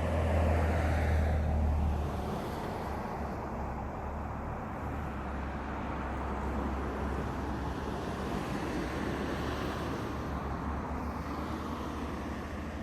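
Steady wind noise on the microphone: a low rumble under a hiss, loudest in the first couple of seconds.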